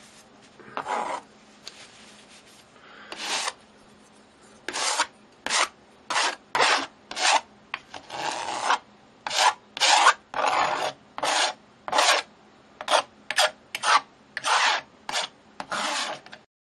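Metal palette knife scraping across a canvas coated in wet acrylic paint: about twenty short scraping strokes, irregular, one or two a second, stopping abruptly near the end.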